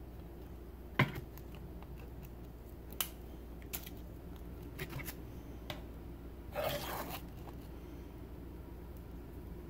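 Clicks and knocks of locking pliers holding a nail being set down and positioned on a wooden board, the sharpest knock about a second in, then a short scrape a little past the middle.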